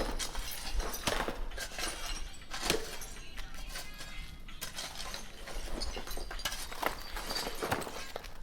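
Debris being cleared by hand: irregular clinks, knocks and scraping clatter of rubble and broken pieces being moved and dropped, with the sharpest knocks about a second and nearly three seconds in.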